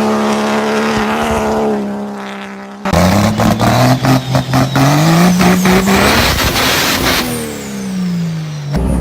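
L5P Duramax 6.6-litre V8 turbodiesel pickup engine running at a steady pitch. About three seconds in, the sound changes abruptly and the engine revs up, holds and winds back down, with a quick run of sharp knocks and clatter over it.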